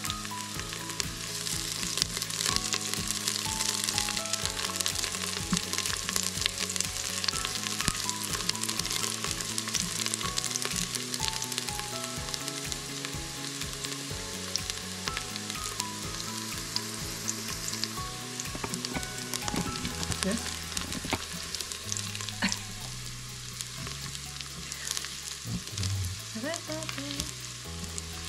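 Sliced garlic sizzling and crackling in hot olive oil in an Instant Pot's stainless steel inner pot on the sauté setting, with a soft background music track underneath.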